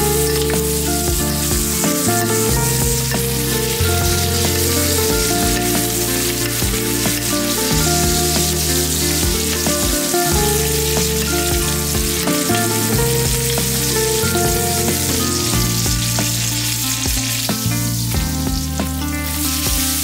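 Pork steak sizzling and spitting in hot foaming butter in a steel skillet as it is spoon-basted, with background music underneath.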